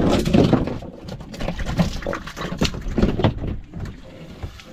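Irregular knocks and splashing as a freshly caught corvina goes into the boat's fish hatch and the hatch lid is handled, loudest in the first half second.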